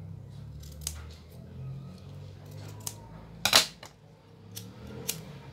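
Hands working grosgrain ribbon and small craft tools on a table: a few light clicks and taps, with one louder sharp snap about three and a half seconds in.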